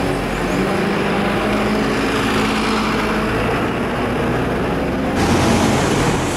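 A bus engine running close by, a steady drone with a low hum. About five seconds in it gives way abruptly to the rush of a fast, swollen river pouring over boulders.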